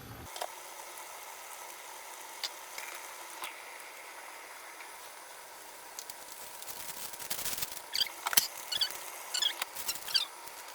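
Pot of frying rice just covered with hot water on the highest heat, hissing steadily. A few isolated clicks come early, then a burst of sharp crackles and clinks in the last few seconds.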